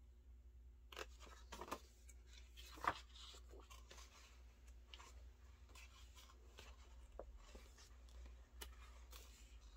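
Photobook pages being turned by hand: faint paper rustles and soft flaps, the sharpest about three seconds in, over a low steady hum.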